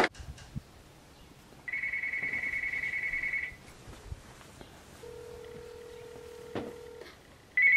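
Cordless telephone ringing with an electronic trilling ring, one ring about two seconds long. A fainter, lower steady tone follows for about two seconds, and the next ring starts just before the end.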